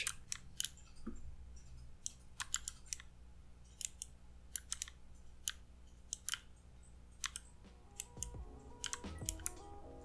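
Faint, irregular keystrokes on a mechanical keyboard with clicky Kailh Bronze speed switches under pudding keycaps, each press a short sharp click, about two a second.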